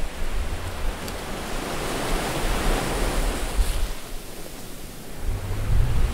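A rushing noise with a low rumble under it, swelling about two to three seconds in, ebbing a little after four seconds and rising again near the end.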